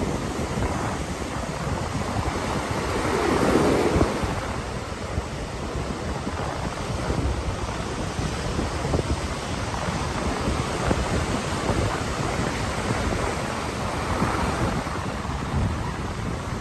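Ocean surf breaking and washing up the shore in a steady rush, with a wave surging louder about three to four seconds in and another near the end.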